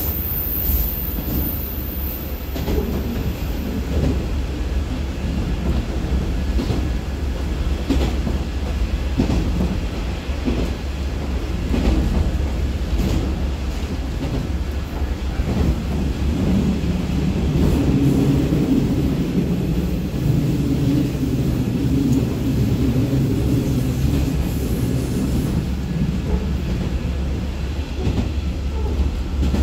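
Running noise inside a moving KiHa 47 diesel railcar: a steady low rumble of wheels on rail, with scattered knocks from the track. About halfway through, the underfloor diesel engine's pitched drone comes up strongly and holds for some ten seconds, then fades near the end.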